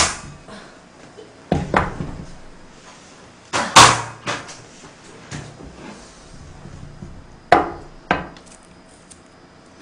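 Knocks and clunks of a stainless steel pot and a portable gas stove being moved and set down on a wooden table: a sharp knock at the start, heavier clunks about two and four seconds in, and two more knocks near the end as a plate is brought under the pot.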